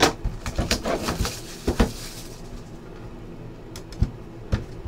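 Sealed trading-card hobby boxes handled on a tabletop: a quick run of light knocks and taps as the boxes are shifted and set down, then a few sparser taps near the end.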